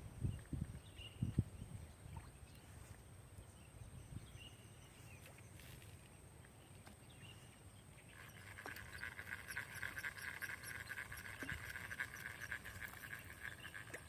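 Outdoor ambience: a few low knocks in the first second and a half, faint scattered chirps, then a high, rapidly pulsing buzzing trill for about five seconds in the second half.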